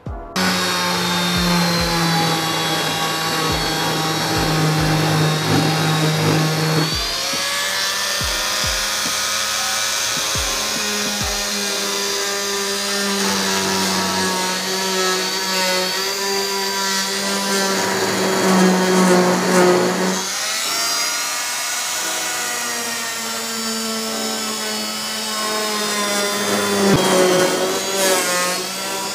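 Pigeon G561 oscillating multi-tool running with a steady buzzing hum as it works. Its note breaks and shifts about seven seconds in and again around twenty seconds in, with a few low knocks in the first dozen seconds.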